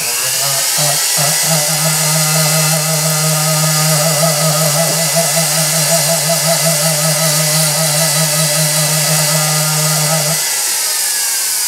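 Jeweller's flex shaft running steadily with a rolled 400-grit sandpaper bit smoothing and feathering the filed edges of a metal cuff blank: an even motor hum with a hiss of sanding on top. It winds down about ten seconds in.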